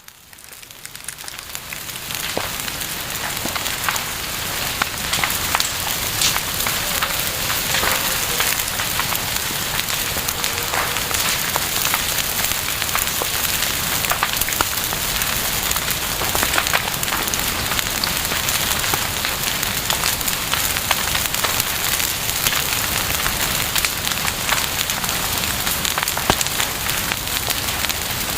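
Bonfire burning: a dense hiss with many sharp crackles and pops, fading in over the first couple of seconds and then holding steady.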